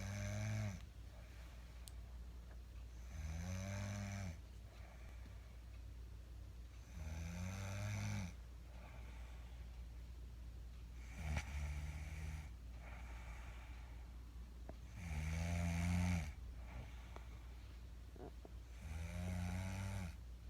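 A woman snoring loudly in her sleep: a rasping, pitched snore on each in-breath, about every four seconds, six snores in all, with quiet breathing between.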